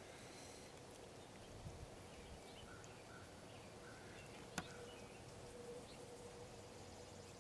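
Near silence: faint outdoor background with a steady faint hum and a single sharp click a little past halfway.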